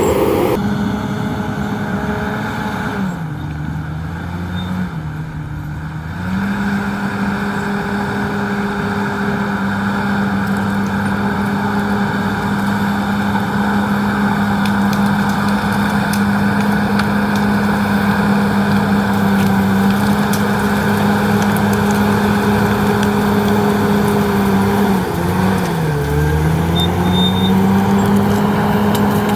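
Komatsu D68ESS bulldozer's diesel engine running at a steady high speed. The engine note sags twice and comes back up, once a few seconds in and again near the end.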